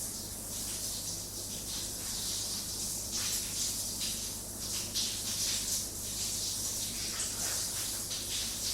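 Toothbrush bristles scrubbing back and forth over teeth, a continuous irregular scratchy hiss in short strokes.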